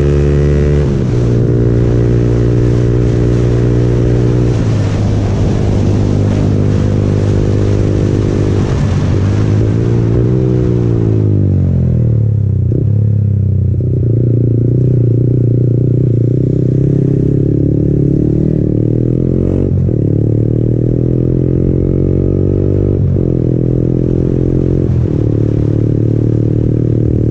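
Yamaha MT-15's 155 cc single-cylinder engine through an aftermarket Akrapovic exhaust, heard from the rider's seat with wind rushing on the microphone. It cruises, falls in pitch as the bike slows and drops down the gears about ten seconds in, then pulls back up, with a short dip at each upshift.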